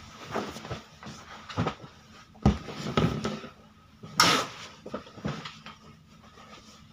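Pillows and bedding being handled and dropped onto a bed: soft thumps and fabric rustling, with a heavier thump about two and a half seconds in and a sharp swish of fabric about four seconds in. A faint low hum runs underneath.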